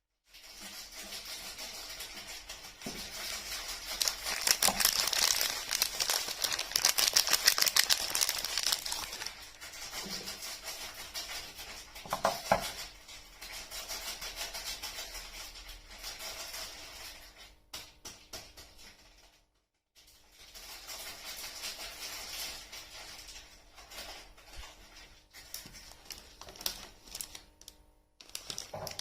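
Soap packaging crinkling and rustling as it is handled and unwrapped up close: a dense string of small crackles, with a brief silent break about two-thirds of the way through.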